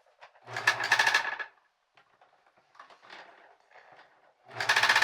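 A person's voice making two harsh, rattling buzz sounds, each about a second long, the first about half a second in and the second near the end, with quieter breathy sounds between them.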